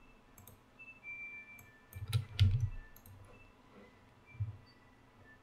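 Computer mouse clicks and keyboard taps while settings are entered: a few scattered clicks, a denser cluster about two seconds in, and another soft knock later.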